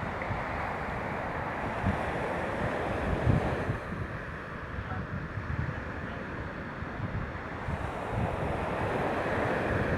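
Fireworks going off in quick succession, a continuous rumble of booms with irregular low thumps, two of them louder about two and three and a half seconds in, mixed with wind buffeting the microphone.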